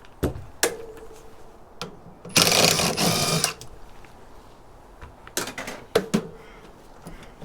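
Metallic clicks and clanks from the steel case of a Sun Ultra Enterprise 450 server being worked open. A loud whirring burst about a second long comes about two and a half seconds in.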